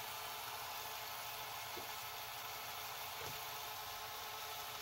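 Fisher FVH-4901 hi-fi VHS VCR rewinding a cassette: the reel drive runs with a steady whir.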